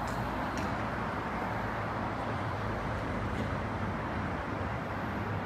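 Steady background traffic noise: an even, unbroken hum with no distinct events.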